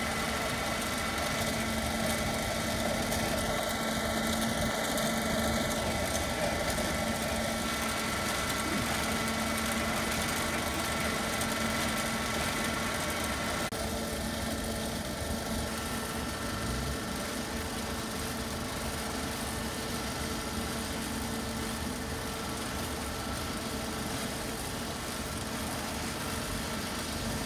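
Quarry chain saw machine for stone, a Dazzini TCI260VH, running steadily: a constant mechanical hum with a high whine held at an even level. Its tone shifts slightly about halfway through.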